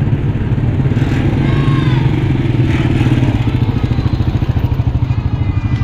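Small motorcycle engine running close by, a steady low throb.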